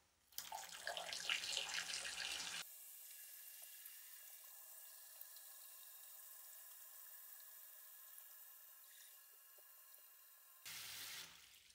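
Water pouring from a hose into a plastic basin, splashing and churning as the tub fills. It is louder for the first couple of seconds, then thinner and quieter, with a brief louder spell near the end.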